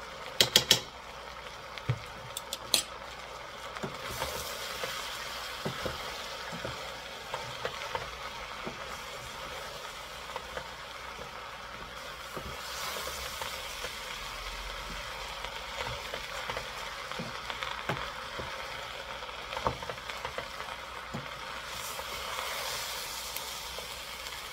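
A metal spoon knocks sharply against the rim of a stainless steel pot a few times in the first three seconds as ginger paste is scraped in. Then a wooden spoon stirs macaroni and vegetables in the pot over a steady sizzle, with small scattered knocks.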